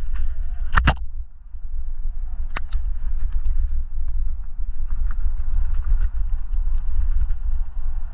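Wind buffeting the microphone in a heavy, uneven rumble, with a loud sharp knock about a second in and two quick clicks a couple of seconds later.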